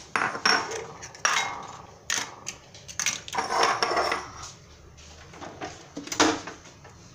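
Kitchen clatter of dishes and utensils being handled on a counter: about five sharp knocks and clinks with scraping and rustling in between.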